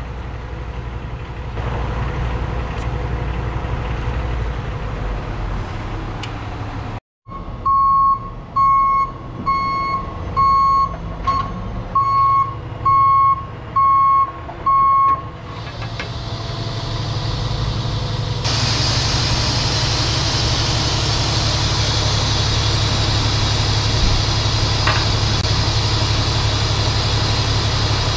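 Fire truck's diesel engine idling, then a warning beeper sounding about eight times, roughly once a second, as the squirt's stabilizers deploy. After the beeps the engine runs up to a louder, steady higher speed with a hiss for the rest of the stretch.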